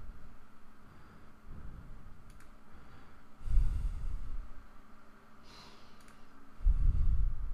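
A person's breathing, with two heavy exhales about three and a half and seven seconds in, and a few faint mouse clicks.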